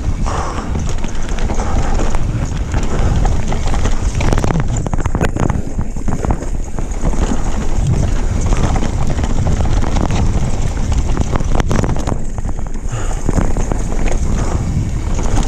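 Wind buffeting the microphone of a mountain bike descending a rocky dirt trail at speed, with the steady rumble of the tyres over the ground and frequent rattles and knocks from the bike over rough spots.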